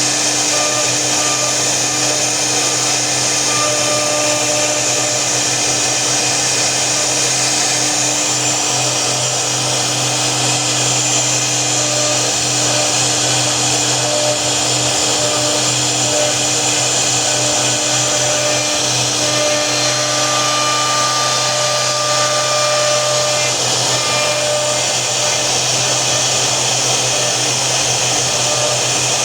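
A CNC router's spindle motor running steadily: a constant motor whine over a steady hiss.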